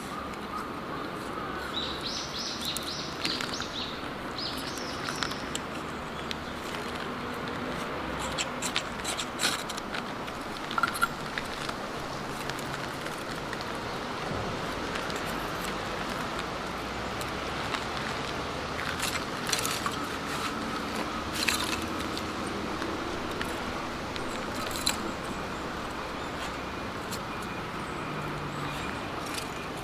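Birds chirping in short calls early on, over steady outdoor background noise, with scattered sharp clicks and knocks.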